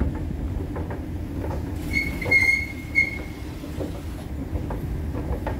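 Underground light-rail station ambience: a steady low rumble of rail traffic, with a high squealing tone about two seconds in, heard in three short pieces over about a second, of the kind made by train wheels squealing on the rails.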